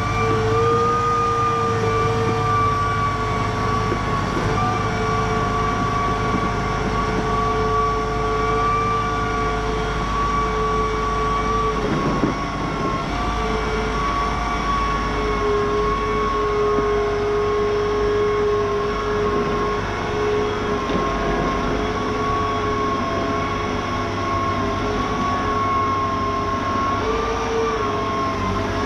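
Machinery running steadily, a constant motor whine of several tones that wander slightly in pitch over a low hum.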